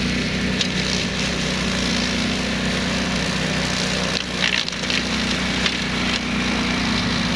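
Ride-on flail mower running steadily under its engine, with brief crackles about half a second in and again around four to five seconds in.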